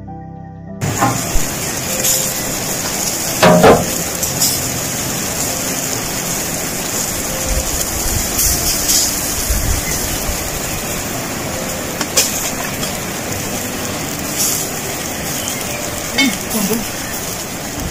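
Lamb on skewers roasting over hot wood coals in a stone tandoor: a steady sizzling hiss with scattered sharp crackles and clicks. A second of music cuts off at the start.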